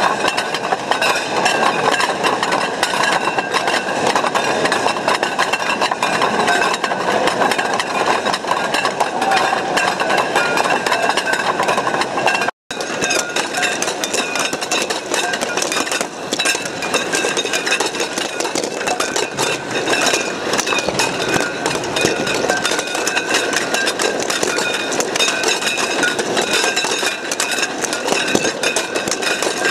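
Large balls rolling and grinding around inside shallow ceramic bowls: a continuous rolling rattle full of fine clicks, with the bowls ringing in several steady tones. The sound cuts out for an instant a little under halfway through.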